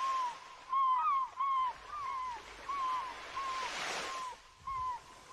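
Seagulls crying: a string of short calls, two or three a second, with a swell of surf washing in about four seconds in.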